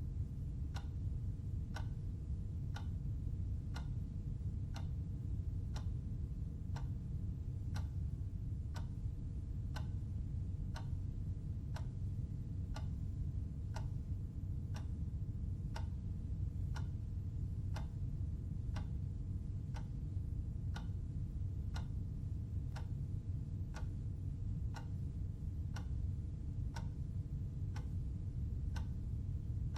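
Clock ticking steadily, about one tick a second, over a steady low hum.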